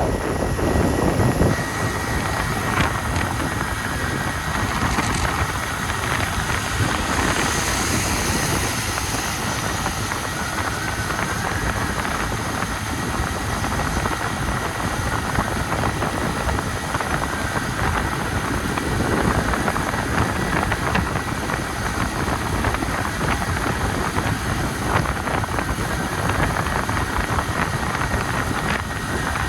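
Wind buffeting the microphone of a Honda CD 70 motorcycle riding in the rain, over the steady running of its small single-cylinder four-stroke engine.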